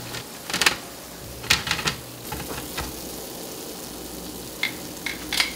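Hot oil sizzling as churros deep-fry: a steady hiss with scattered sharp crackles and pops.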